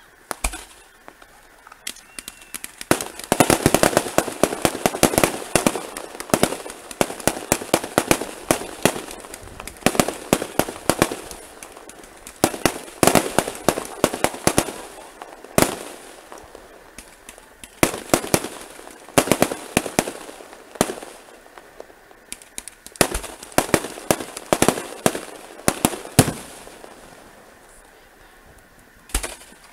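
Aerial fireworks bursting overhead: dense runs of rapid crackling pops that come in waves, with occasional louder single bangs. The crackle dies down near the end, then one more bang.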